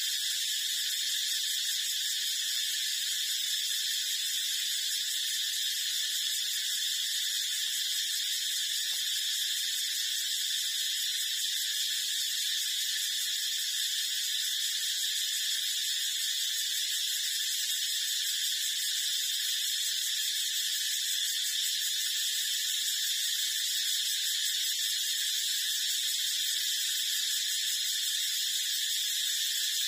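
Steady high-pitched hissing buzz that does not change, with no distinct calls or knocks.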